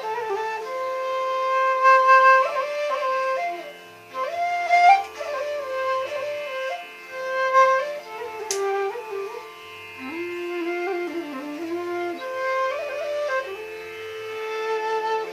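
Instrumental background music: a melody of held notes that slide up and down in pitch, over sustained accompanying tones.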